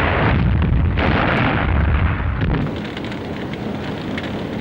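Battle sound effects of explosions: a heavy, rumbling blast that swells twice in the first couple of seconds, then settles into a lower rumble with faint scattered crackles.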